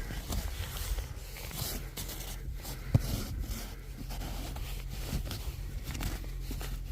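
Irregular crunching and scraping in fresh snow, with a sharp knock about three seconds in.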